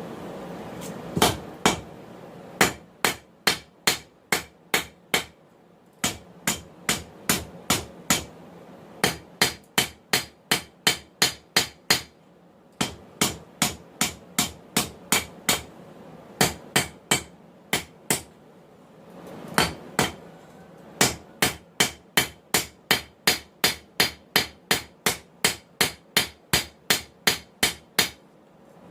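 Hand hammer forging hot 1080 high-carbon steel on an anvil: runs of sharp, ringing blows a little over two a second, broken by short pauses.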